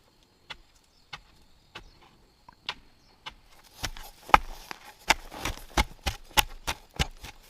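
Irregular sharp knocks and taps, sparse at first with a faint steady high whine behind them. About halfway through they come faster and louder over a rustling hiss.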